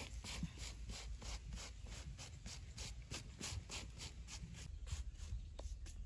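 Insects calling in an even pulsing rhythm, about three hissing pulses a second, over a low rumble.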